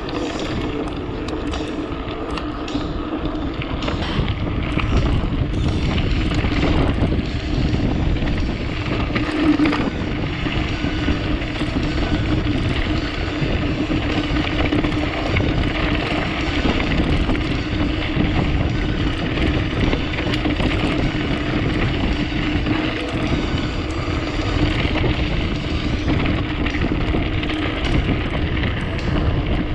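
Wind buffeting an action camera's microphone over the rumble of a mountain bike rolling along a dirt trail, with a steady hum underneath.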